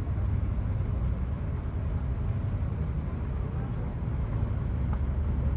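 Passenger ferry's engines running, a steady low drone heard on board.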